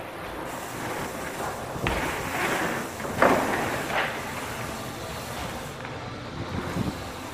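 Mountain bike being ridden over a bike-park course: a steady rolling rush of tyres with a few sharp knocks and rattles from the bike as it hits bumps, the loudest about three seconds in.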